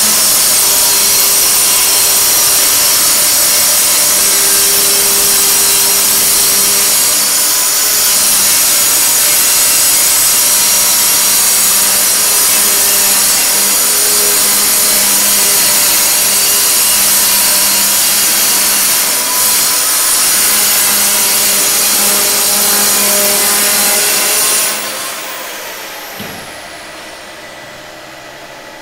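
A power tool running steadily with a loud gritty hiss over a steady hum, typical of a grinder or cutter working on stone or tile. About 25 seconds in it slows and fades away.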